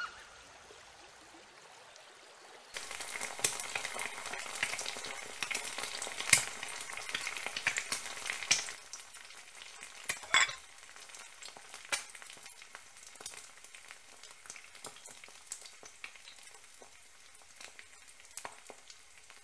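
Food frying and sizzling in a pan while being stirred with a metal ladle. The crackle starts about three seconds in and is loudest for the next several seconds, then settles lower, with scattered sharp clicks throughout.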